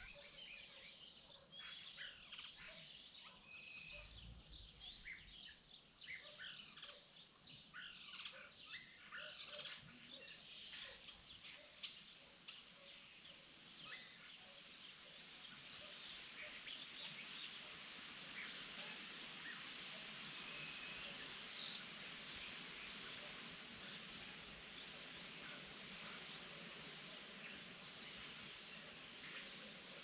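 Forest birds chirping and calling over a steady high trill of crickets. Later, one bird repeats loud, short, very high notes, mostly in pairs, and once gives a falling whistle.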